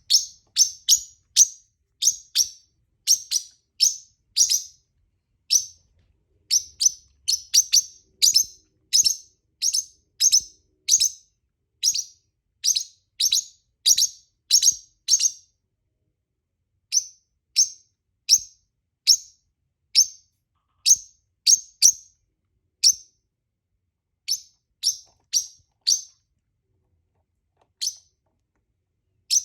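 Pet parrot chirping: short, high chirps in quick runs of about two a second, broken by pauses of a second or two and a longer lull near the end.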